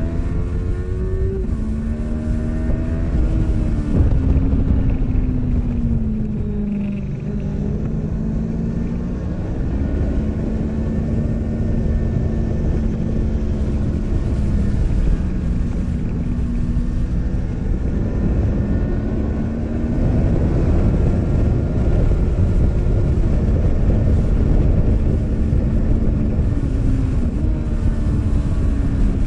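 Yamaha R3's 321 cc parallel-twin engine running hard at high revs. Its pitch rises and falls several times with throttle and gear changes, under heavy wind rush on the microphone.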